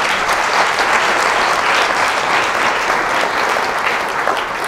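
Audience applauding steadily, a dense mass of many hands clapping.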